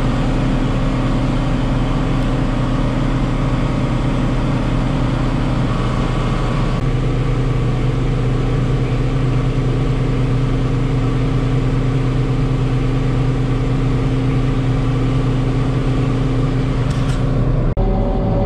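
Tractor engine running steadily under load, heard from inside the cab, with the note stepping slightly about seven seconds in.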